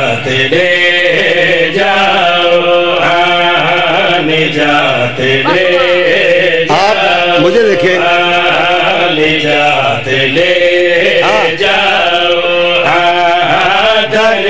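Men singing a qaseeda, an Urdu-Punjabi devotional poem, in a chanting style into microphones: long held lines with rising and falling pitch.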